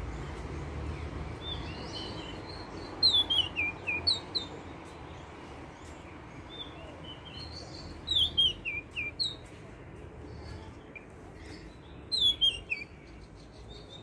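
Oriental magpie-robin song: short phrases of quick whistled notes stepping down in pitch, heard three times about four to five seconds apart, over a low steady background hum.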